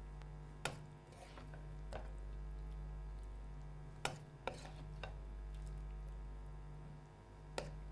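A serving spoon knocking against a wok and a ceramic serving plate about five times while food is dished out, over a steady low hum.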